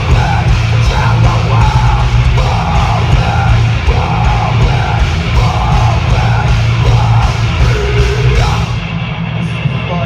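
Metalcore band playing live at full volume: heavy distorted guitars, bass and pounding drums, with vocals over them. Near the end the drums and deepest bass drop away, leaving the guitars.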